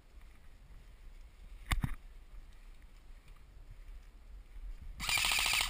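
Airsoft gun firing a rapid full-auto burst of evenly spaced shots, lasting under a second and stopping abruptly near the end. Earlier, about two seconds in, a short sharp double knock.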